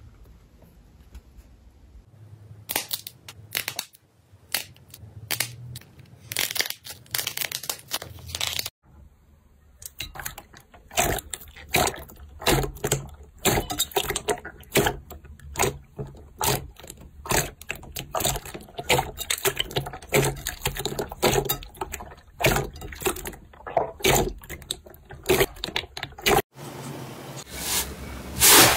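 Hands squeezing and kneading slime, giving a dense run of wet crackles and pops. The sound changes abruptly a few times as one clip gives way to the next.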